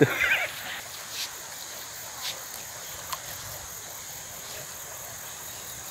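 Steady, high-pitched drone of insects such as crickets or cicadas in the riverside forest, with a short warbling sound right at the start and a few faint ticks.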